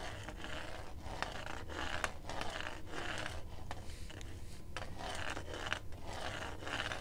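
White cane's plastic tip sweeping back and forth across a bare cement floor in constant contact, a continuous gritty scrape that swells with each sweep, with a few sharp ticks.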